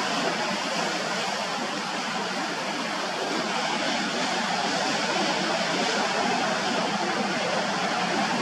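Steady, even rush of sea surf.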